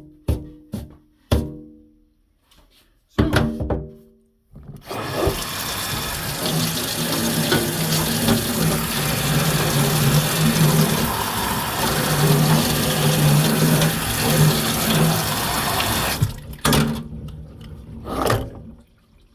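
Water running steadily for about eleven seconds, starting about five seconds in and cutting off suddenly, with a few sharp knocks before and after.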